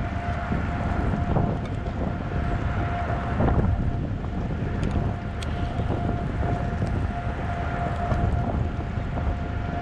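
Strong wind buffeting the microphone in a dense low rumble, with a steady high tone held underneath.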